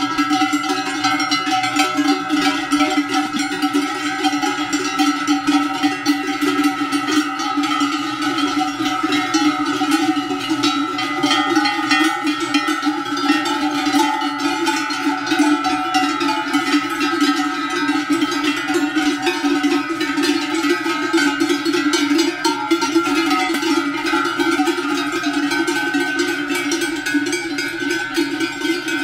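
Many cowbells worn by a herd of walking cows ringing together without pause in a dense clanging, with a deep ringing note underneath.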